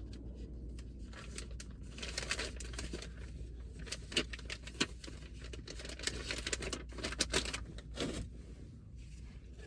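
Rustling and light clicking from small items being handled in a car, with crinkles like paper or wrappers, over a steady low hum.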